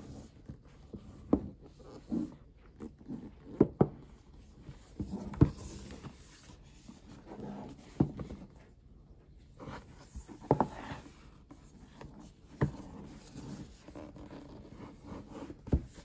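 A rigid cardboard box being handled and turned over on a wooden tabletop: fingers rubbing and sliding on the card, with several sharp knocks and taps as the box meets the table.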